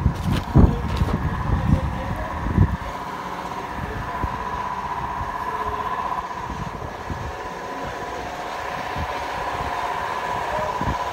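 A steady mechanical drone from a machine running, with a few low bumps in the first three seconds.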